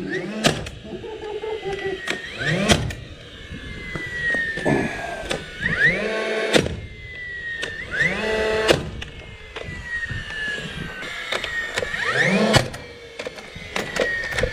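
Cordless DeWalt framing nailer firing nails into wood, about every two seconds: each shot is a rising motor whine, a sharp clack as the nail is driven, then a falling whine.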